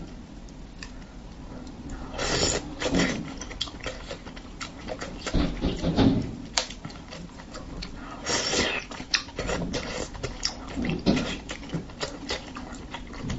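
Close-miked eating of spicy braised fish: wet slurping and chewing noises come in irregular bursts, with small clicks between them.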